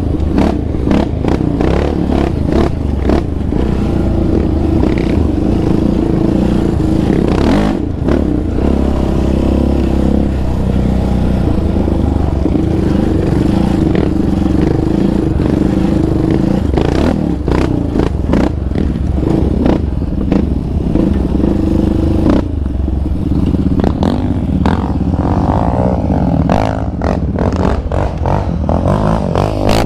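Yamaha Raptor 700R's single-cylinder four-stroke engine running under load on the trail through an aftermarket Monster exhaust, the note holding steady for most of the ride, then rising and falling with the throttle over the last several seconds. Clatter and knocks from the quad running over rough ground.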